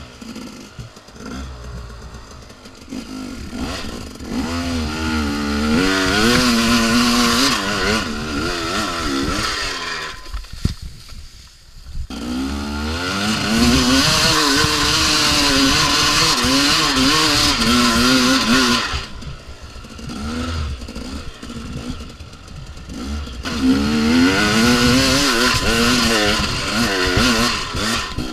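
2014 KTM 250 XC-W two-stroke dirt bike engine revving hard under load on a steep hill climb. It comes in three long bursts of throttle, the revs rising and falling, with the engine dropping off twice in between.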